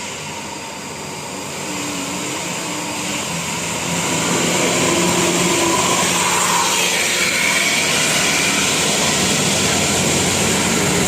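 Steady rushing noise of heavy road traffic, a large vehicle's engine and tyres going past. It grows louder over the first few seconds, then holds.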